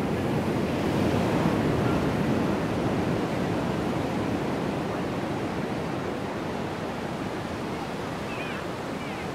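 Steady rushing of surf with wind buffeting the microphone, a little louder in the first few seconds.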